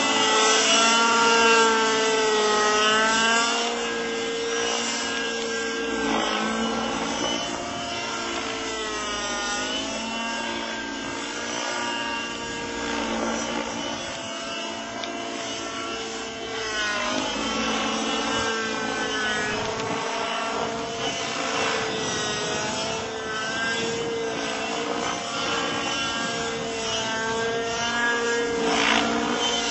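Radio-controlled model helicopter, a Robbe Millenium 2, flying aerobatics: its engine and rotor whine runs continuously, the pitch rising and falling again and again as it manoeuvres.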